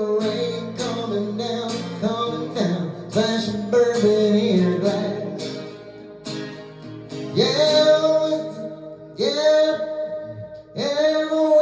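Acoustic guitar playing a country song with a man's voice holding long wordless sung notes, three of them in the second half.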